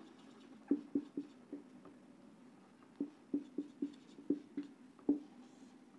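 Marker pen writing on a whiteboard: a string of short squeaks and taps from the pen strokes, a few about a second in and a longer run from about three to five seconds in.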